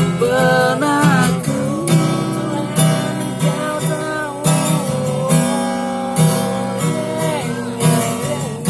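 Strummed acoustic guitar accompanying a voice singing a wavering, drawn-out melody with no clear words.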